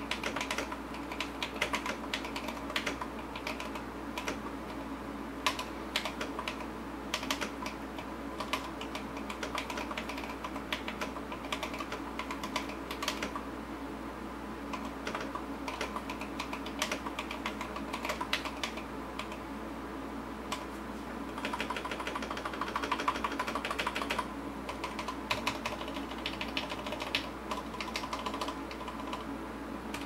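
Typing on an LCK75 custom mechanical keyboard fitted with lubed and filmed C3 Kiwi tactile switches, lubed C3 stabilizers and Drop MT3 Jukebox keycaps: a continuous run of keystrokes, with a faster, louder flurry about two-thirds of the way through.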